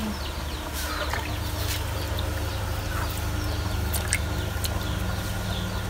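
Chickens clucking over a steady low rumble, with a few sharp clicks from small, hard hed phor (earthstar) mushrooms knocking together as hands pick through them in a plastic basin.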